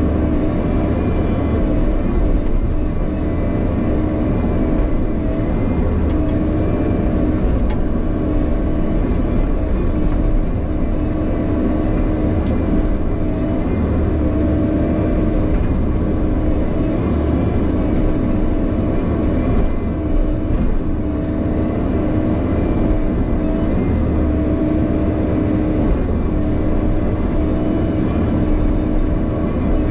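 Bobcat E50 compact excavator's diesel engine running steadily under load, with the hydraulics working as it digs a trench in rocky ground.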